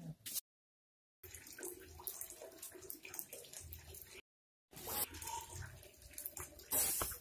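Floodwater sloshing and splashing around a person wading knee-deep, broken by two short dead-silent gaps, with a louder splash near the end.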